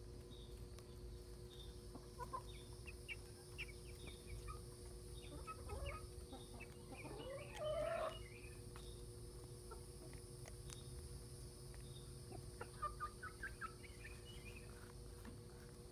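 Hens clucking softly as they feed on a corn dog, with one louder, longer call that rises in pitch about seven seconds in and a run of quick short clucks near the end.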